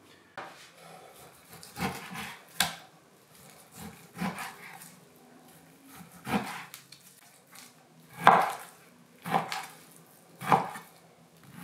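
Chef's knife slicing through raw beef and knocking onto a wooden cutting board, about seven separate strokes a second or two apart, the loudest about eight seconds in.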